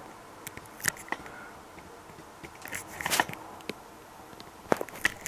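A few separate clicks and knocks with light scraping: handling noise as an object is shifted and set down.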